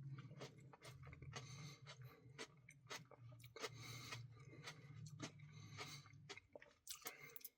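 Faint chewing of a mouthful of ice cream with cookie pieces: scattered soft mouth clicks and smacks over a steady low hum.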